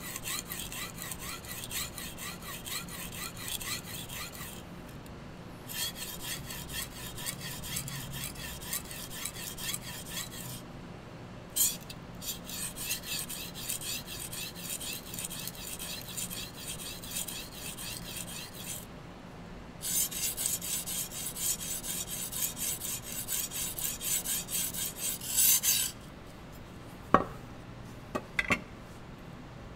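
Steel knife blade stroked rapidly back and forth across a whetstone: an even, rhythmic scraping in runs of several seconds with short pauses between, the last run the loudest. Near the end, two light knocks.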